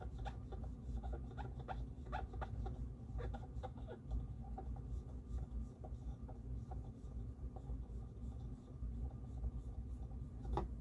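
Cotton swab dampened with alcohol rubbing and scraping around the grooves of a turntable motor pulley: soft, quick scratching strokes, repeated many times.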